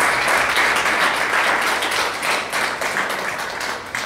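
Small congregation applauding, the clapping thinning out and dying away over the last second or two into a few separate claps.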